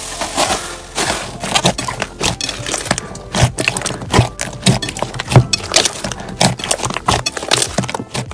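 Slime being pressed and squeezed in close-up, giving a dense run of irregular crackles and sharp pops, the sound of crunchy slime, over quiet background music.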